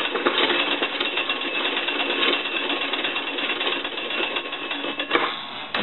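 Hand-cranked magneto of an American Telegraph and Telephone Company wooden wall telephone being turned, its freshly oiled gears whirring as it rings the bells in a rapid, continuous clatter. The cranking stops about five seconds in.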